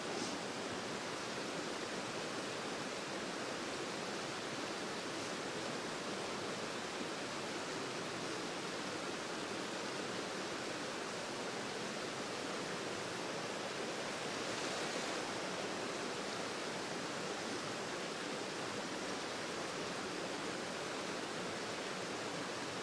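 A low, shallow river running fast over rocks: a steady rushing of water, a little louder about two thirds of the way in.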